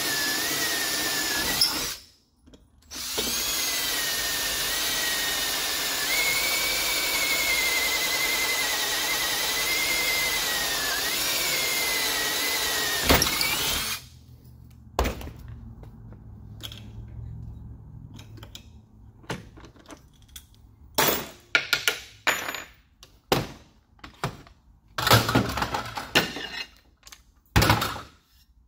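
Drill press boring through an aluminum bracket: the motor and cutting bit run steadily with a wavering high whine, break off briefly about two seconds in, and stop about fourteen seconds in. After that come scattered clicks and clinks of the metal part and aluminum chips being handled.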